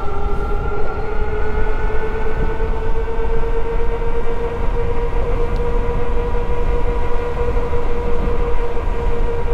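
Motor of a 48 V, 1000 W fat-tire e-bike whining under full throttle near top speed, its pitch rising slowly and then holding steady, over heavy wind rumble from a strong headwind.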